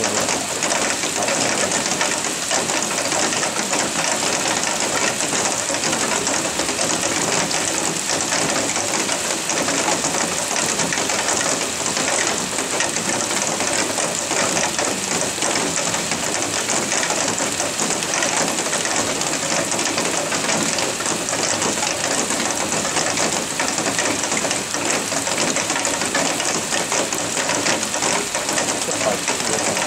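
Heavy rain falling steadily: a dense hiss made of countless small drop impacts, with no let-up.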